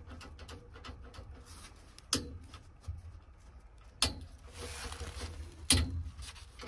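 Three sharp clicks about two seconds apart as the car's switches are tried, with a brief soft hiss before the last one. No cranking follows: the starter is not engaging, which is later traced to a corroded start wire.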